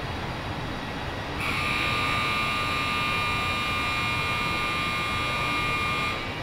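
Steady factory rumble with a pickup truck's engine idling, and a loud, steady high-pitched machine whine that starts about a second and a half in and cuts off suddenly near the end.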